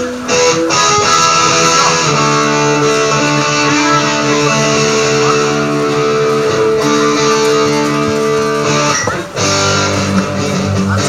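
Electric guitar played alone through a sound system during a band sound check, ringing out held chords. There is a brief break a little after nine seconds in, and then it plays on.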